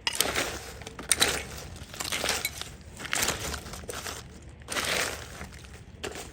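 Crunching, crumpling rustles in about six bursts roughly a second apart, with a few sharp cracks, as dry litter is disturbed by hand or foot.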